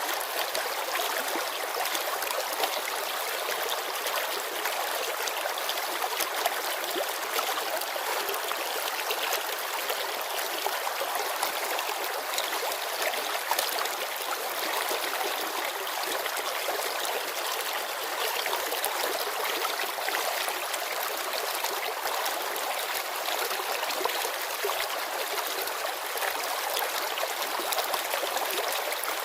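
Shallow mountain river babbling over stones: a steady, bright rush of water with small splashes and trickles throughout.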